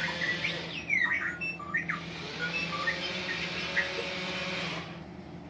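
Remote-control R2-D2 toy's speaker playing R2-D2's electronic beeps and whistles: quick rising and falling chirps and short bleeps that stop shortly before the end.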